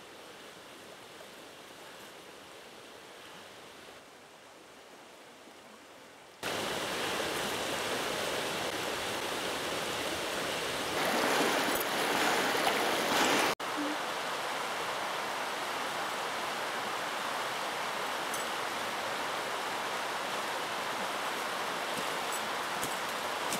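Shallow river rushing over stones: a steady rushing noise, faint at first, jumping suddenly louder about six seconds in and cutting out for an instant about halfway through.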